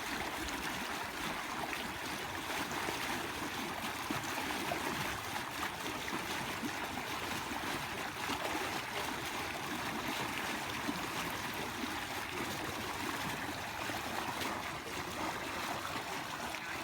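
Stream water flowing steadily, an even trickling wash with no breaks.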